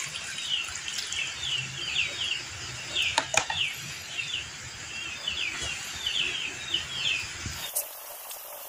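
Hands kneading and turning damp rice bran in a plastic tub, a soft rustling, while birds chirp in quick short runs. A couple of sharp clicks come a little after three seconds in.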